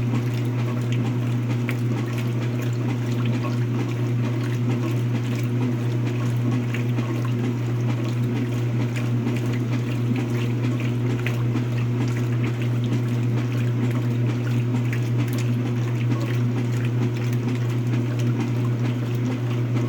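Speed Queen washing machine running with a steady low hum and scattered faint crackling, a strange noise that the owner suspects is a bad transmission.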